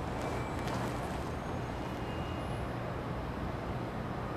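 Steady outdoor street ambience: a low, even hum like distant traffic, with a few faint clicks near the start.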